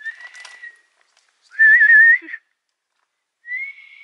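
A person whistling three notes: a short steady note, a louder note with a wavering pitch about two seconds in, then a short rising note near the end.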